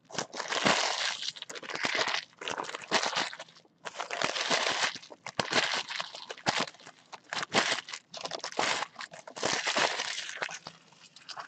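Trading-card pack wrappers being torn open and crumpled by hand: irregular bursts of crinkling and crackling with short pauses.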